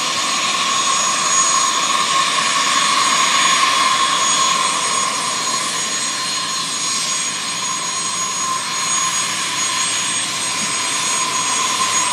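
Dassault Falcon 50's three turbofan engines whining at taxi power: a steady high whine over a rushing hiss, a little louder about three to four seconds in.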